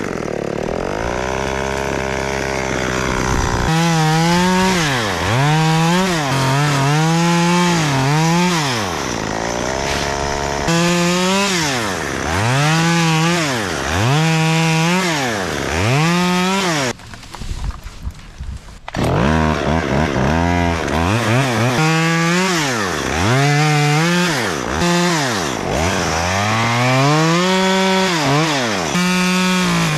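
Two-stroke chainsaw cutting wood, revving up and dropping back over and over, with a brief lull about seventeen seconds in before it picks up again.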